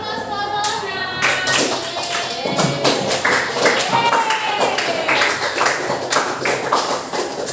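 Music with a voice singing over it and sharp percussive taps or claps throughout.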